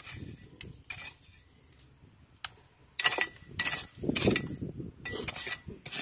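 Small metal hand rake scraping and raking through coarse wet gravel and shell grit while digging for clams, in irregular strokes with gritty clinks. A few strokes in the first half, then steady raking from about three seconds in.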